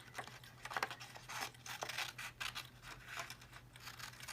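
Scissors snipping through cardstock in a string of short, irregular cuts, with the paper rustling as it is turned.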